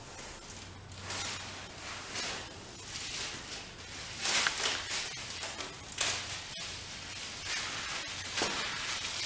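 Thin protective plastic film being peeled off the back of a stick-on car window wind deflector, crinkling and rustling in uneven bursts, loudest about four seconds in and again around six seconds.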